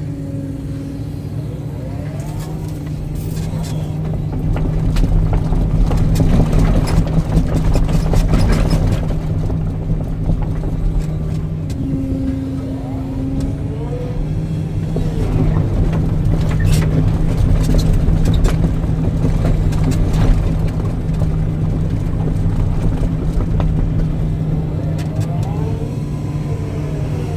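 Hitachi excavator's diesel engine running steadily under hydraulic load while backfilling. The engine swells twice, with short rising and falling whines and bursts of clatter.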